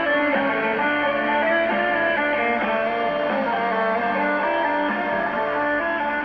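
Guitar music with plucked strings from a shortwave broadcast on the 31-metre band, playing through the speaker of a Philips DL225 portable radio. The sound is steady and thin, with the treble cut off.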